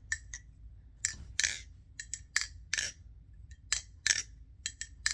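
Nabalis Impulse balisong (butterfly knife) being flipped: its metal handles and blade clack together in a string of irregular, sharp metallic clicks, some with a brief ring.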